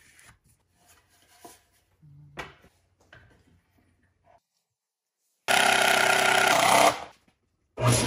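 Table saw running, loud and steady, in two stretches: one starting about five and a half seconds in that cuts off after about a second and a half, and another starting near the end. Before it, only faint pencil scratching and light knocks of the board being handled.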